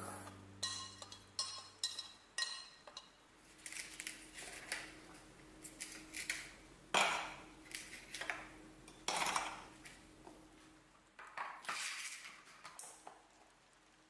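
A metal spoon stirring and clinking against a glass pitcher, then ice cubes knocked out of an ice cube tray and dropped into the glass, giving several separate knocks and clatters. The loudest knock comes about seven seconds in.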